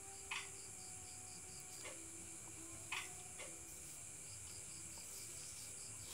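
Night insects, crickets, trilling faintly: a steady high-pitched trill with a pulsed chirp of about five pulses a second that comes and goes. Two short clicks stand out, about a third of a second in and again about three seconds in.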